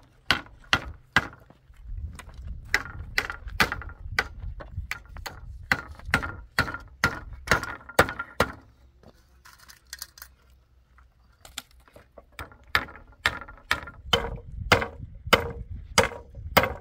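Repeated sharp striking blows, about two to three a second, each with a short ring. The strikes thin out for a few seconds around the middle, then resume.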